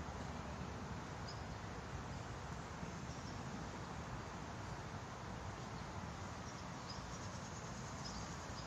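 Faint, steady outdoor background ambience at a pond, with a few faint high chirps.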